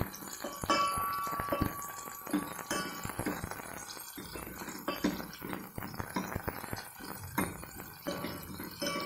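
Metal ladle stirring and scraping in a stainless steel pot of shallots and garlic frying in oil, with repeated clinks against the pot; a harder knock about a second in sets the pot ringing briefly.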